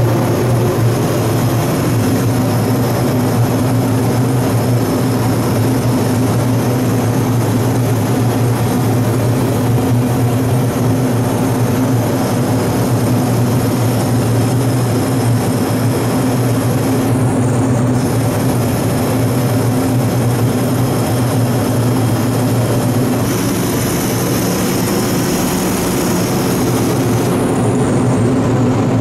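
Powder coating booth's exhaust fan running with a steady drone, under the hiss of air from an electrostatic powder coating gun spraying powder. The hiss stops briefly a little past halfway and comes back stronger near the end.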